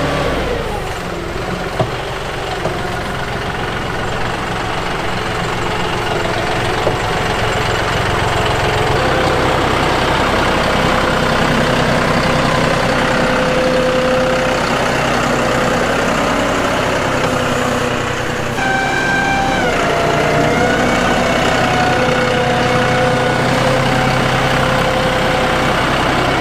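John Deere 5055E tractor's three-cylinder diesel engine running steadily while working dirt with a land plane. The engine note dips briefly near the start and shifts pitch about two-thirds of the way through.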